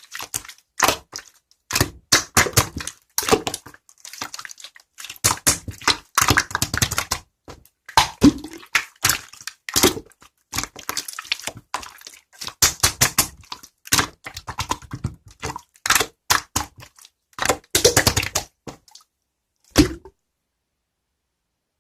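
Sky-blue marbled slime being worked by hand, giving clusters of quick sticky clicks and pops, one cluster every second or so. It stops about two seconds before the end.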